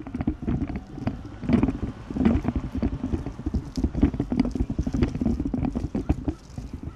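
Wind rumbling on a phone's microphone while it is carried along on foot, with irregular knocks, scrapes and clothing rustle from handling.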